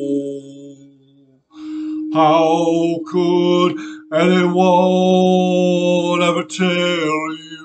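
A man's voice singing long, wordless held notes with a wavering vibrato, starting about two seconds in, with short breaks between notes. A steady pure tone sounds underneath the singing.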